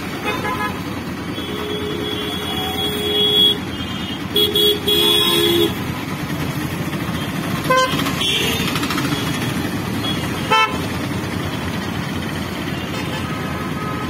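Vehicle horn honking over a steady rumble of road traffic: one long blast about a second and a half in, then two short toots and a longer blast a couple of seconds later. Two sharp knocks come later on.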